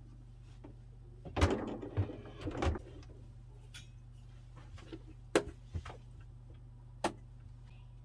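Chest fridge being shoved and shifted into place on a wooden base: a burst of scraping and knocks about a second and a half in, then three single knocks later on. A low steady hum runs underneath.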